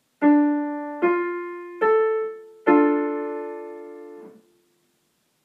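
Piano playing a three-note chord, its notes struck one at a time rising, then all three together, held and ringing out to silence: an ear-training example to be judged major or minor.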